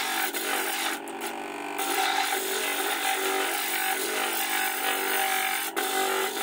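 A stone grinding against the spinning, water-fed disc of a lapidary flat lap, a steady gritty rasping over the machine motor's hum, as the cabochon's edge is shaped. The rasp eases briefly about a second in.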